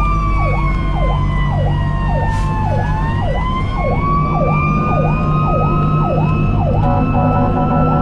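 A fire engine's sirens sound while it runs a call. One siren cycles up and down in pitch a little under twice a second, switching to a faster cycle near the end. Under it, a second steady siren wail sags in pitch and climbs back, over the low hum of the truck's engine.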